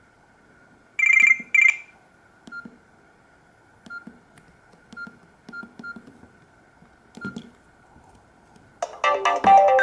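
Nokia E66 mobile phone: two short electronic beeps, then several faint key clicks a second or so apart, then a loud polyphonic ringtone melody starting near the end.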